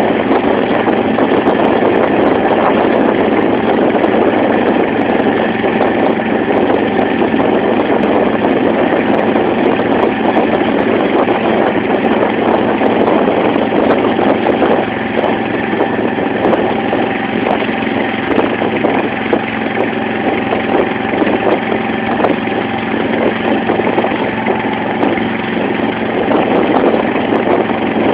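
Engine of a wooden banka motorboat running steadily and loudly while the boat is under way.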